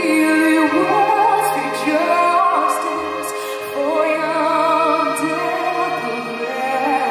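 A woman singing a lyrical song into a microphone, with an orchestra accompanying her in long held chords.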